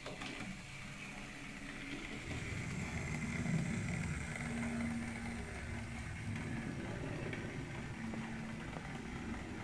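Hornby L&Y Pug 00 gauge model locomotive running along the track: the hum of its small electric motor and its wheels on the rails, getting louder from about two seconds in as it comes close.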